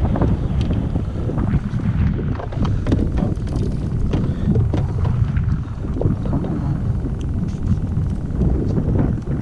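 Wind rumbling steadily on the camera microphone, with scattered knocks and rattles as a landing net and gear are handled on a kayak.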